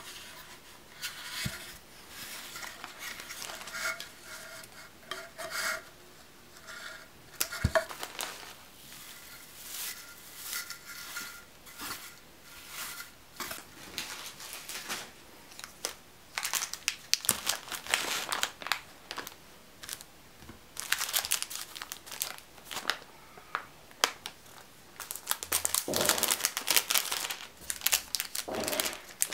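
Hands rustling and crinkling craft materials: shredded filler being handled in a small wooden crate, with a light knock about eight seconds in. Near the end a clear plastic bag crinkles loudly as snacks are put into it.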